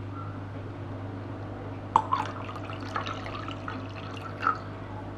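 Water poured from a small stainless steel saucepan into a glass measuring jug, splashing and trickling, starting about two seconds in.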